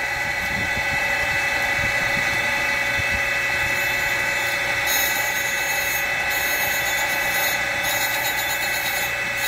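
Surface grinder running, its abrasive wheel grinding an aluminum bar on the magnetic chuck under a light film of WD-40 oil, with a steady whine and hum. From about four seconds in, a high hiss comes and goes roughly once a second.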